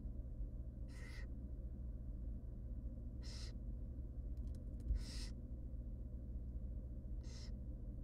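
Barn owl nestlings' begging hisses: four short, breathy hisses about two seconds apart, the food-begging calls of hungry chicks being fed, over a steady low hum.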